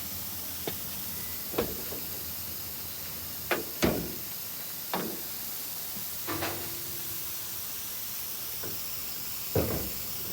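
About eight irregular thumps and knocks over a steady hiss, the loudest a little before the middle and near the end, one followed by a short hum.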